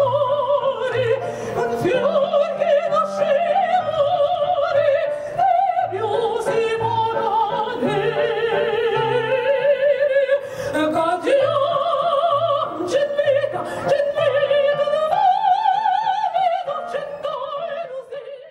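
A woman singing in operatic style into a microphone, holding long notes with wide vibrato, over an amplified musical accompaniment with a bass line.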